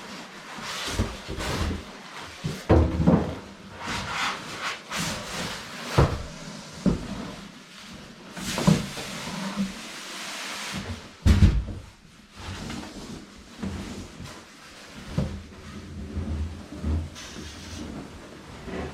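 Large cardboard TV box being lifted off and handled: cardboard scraping and rustling with several dull knocks, the loudest about eleven seconds in.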